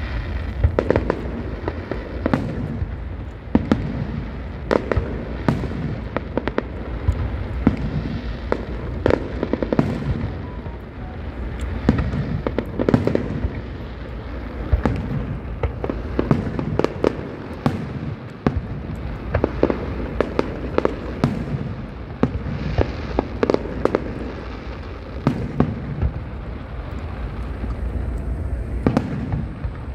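Fireworks display: shells bursting in a rapid, irregular run of bangs and crackles, several a second at times, over a steady low background noise.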